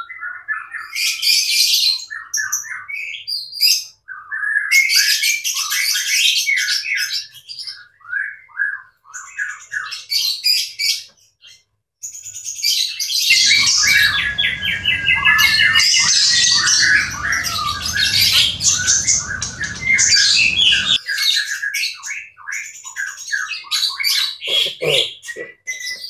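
White-rumped shama singing: loud, varied phrases of whistles, chirps and harsh notes in bursts with short pauses. A low rumble runs under the song for several seconds in the middle.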